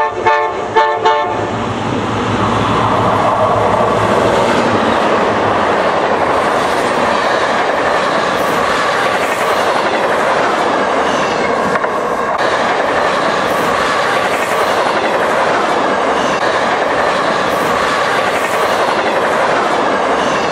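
The horn of an HO scale Milwaukee Road Hiawatha model passenger train sounds a quick series of short blasts. The train then runs close past with a steady rushing rattle of wheels on the track, which lasts as the long string of cars goes by.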